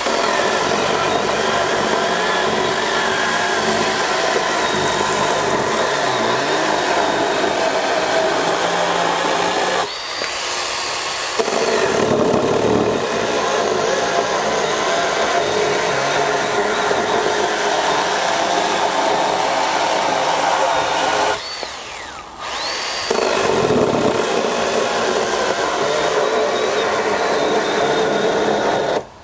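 Milwaukee M12 FHS 12-volt battery hatchet pruning saw cutting through a timber board. It cuts steadily three times, and the motor eases off and speeds up again briefly about ten seconds in and again after about twenty seconds. The last cut ends as the saw stops.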